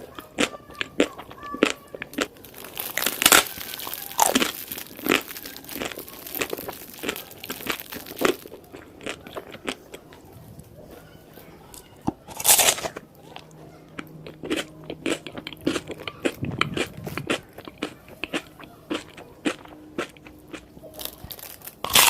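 Close-up eating sounds of crunchy food: sharp bites and crunches with quick chewing clicks in between, the loudest crunches a few seconds in and again about halfway.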